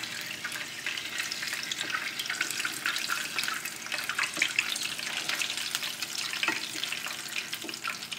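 Potato cheese balls deep-frying in hot oil: steady sizzling with many small crackles. The balls have turned brown and are done.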